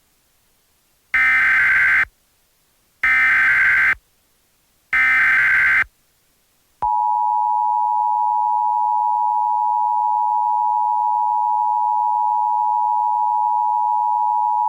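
Emergency Alert System signal: three one-second bursts of the warbling digital SAME header encoding a Civil Emergency Message, about two seconds apart, followed about seven seconds in by the steady two-tone EAS attention signal held for about eight seconds.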